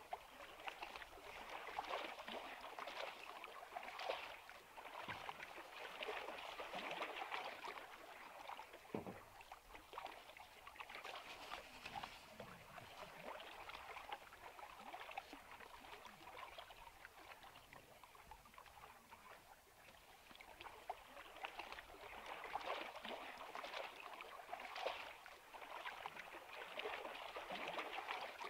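Tissue rubbing and squeaking against a fogged car window as condensation is wiped off the inside of the glass, in irregular strokes that swell and fade.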